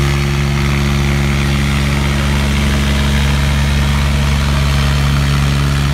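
Diesel engines of two tractors, a red tractor and a green John Deere, running hard under load as they pull against each other in a tug-of-war, chained back to back. A loud, steady, deep drone that holds the same pitch throughout.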